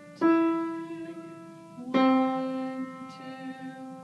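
Piano played slowly by a beginner: two single notes struck about two seconds apart, each ringing out and fading.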